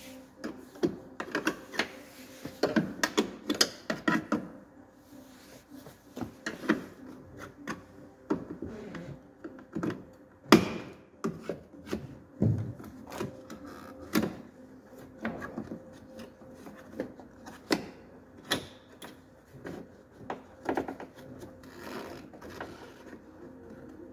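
Irregular clicks, taps and knocks as a VW Caddy's plastic tail light unit is pried at with a screwdriver and worked loose from the van's body by hand, with a faint steady hum underneath.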